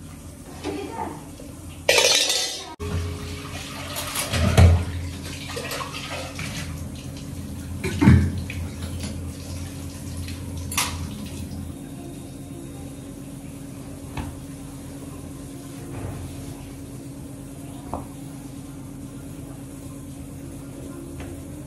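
Steel pots and dishes clattering and knocking in a kitchen sink as they are washed, with tap water running, over a steady low hum. A brief loud hiss about two seconds in cuts off sharply.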